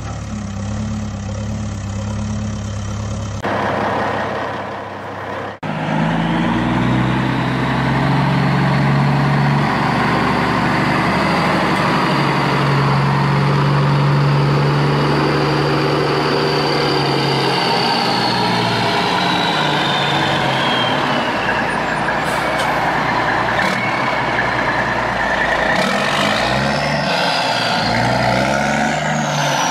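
Heavy truck engine sound effect running steadily. The engine note changes about three and a half seconds in, and there is a short click just after five seconds. A high whine then climbs and slowly falls away.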